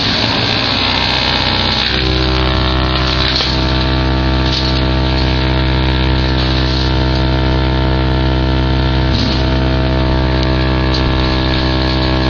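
Fendt 920 Vario tractor and its PTO-driven branch chipper running steadily at working speed: a loud, even machine drone that does not change, with a few faint brief knocks.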